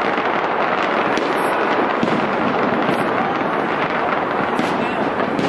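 Fireworks display going off in a dense, unbroken barrage of bangs and crackle, with no pause between bursts.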